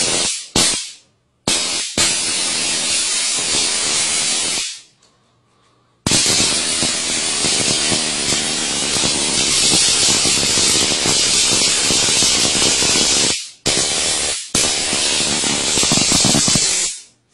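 A homemade taser sword's stun-gun arc crackling at the blade tip. It comes as a few short zaps first, then a run of about three seconds, a pause of over a second, a long run of about seven seconds, a brief break, and another run of about three seconds.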